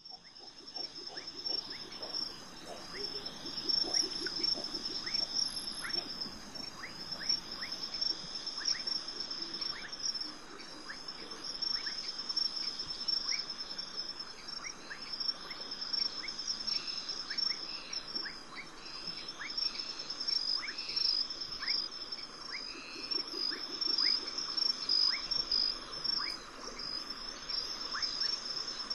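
Rainforest insect chorus: a steady high-pitched trill throughout, with many short chirps scattered over it.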